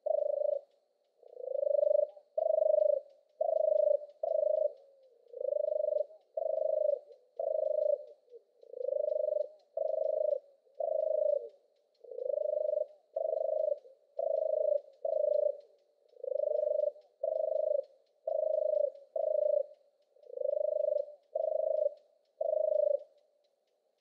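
European turtle dove singing: a long run of purring notes, roughly one a second, falling into twos and threes with short pauses between groups.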